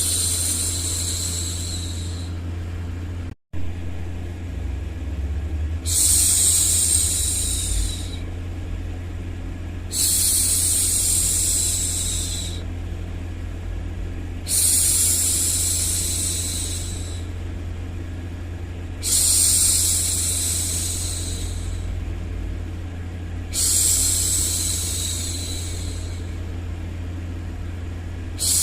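A woman's voice making long, soft 'shhh' hushing sounds, about six of them, each some two seconds long and repeated every four to five seconds, over a steady low white-noise hum. The sound cuts out for a split second about three seconds in.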